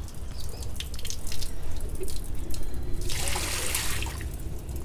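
Water dripping and splashing around opened sediment filter housings, with a brief rush of water about three seconds in.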